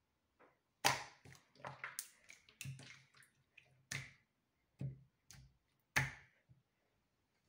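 Glossy crystal slime being stretched and pressed flat against a table by hand, giving an irregular run of sharp, wet sticky clicks and pops, the loudest coming about a second in and again near the end.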